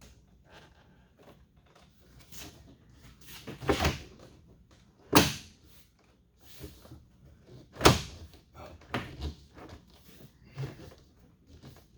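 Knocks and thumps from a part being pushed and tapped into place on a pickup truck door: a small cluster of knocks, then two loud sharp knocks a few seconds apart, then lighter taps.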